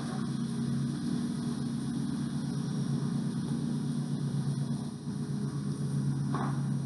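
A steady low mechanical hum, like a machine running at an even speed, with a few faint clicks over it.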